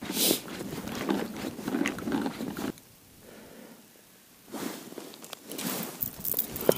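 Close rustling and handling noise from a padded winter fishing suit and gear as the angler shifts over the ice hole, in two spells with a short quiet gap between and a sharp click near the end.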